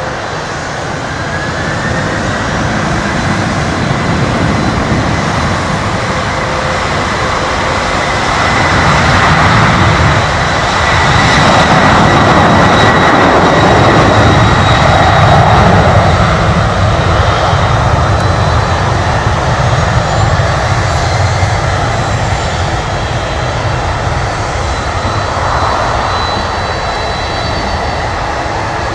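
Boeing 767-200ER's twin turbofan engines on the takeoff roll: a loud jet roar with a steady high whine. It grows louder as the jet passes, is loudest about halfway through, then eases off.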